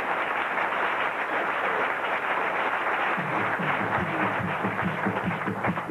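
Theatre audience applauding steadily. About three seconds in, music with a beat comes in under the clapping.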